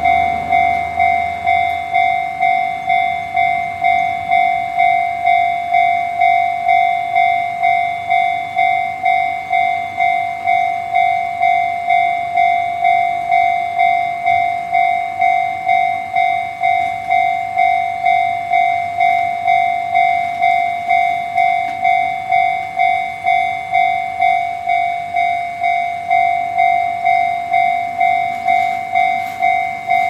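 Japanese railway level-crossing alarm with the Chichibu-type tone, ringing an even ding about one and a half times a second, each ding fading before the next.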